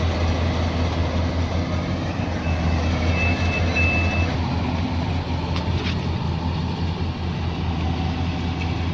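Yanmar AW70GV combine harvester's diesel engine running steadily under load, a constant low hum. A short high beep sounds twice about three seconds in.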